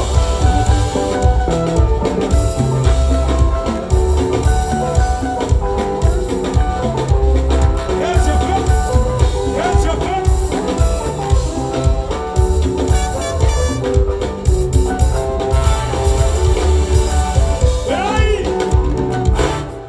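Live band music with a steady drum beat, heavy bass and guitar, and a voice singing over it.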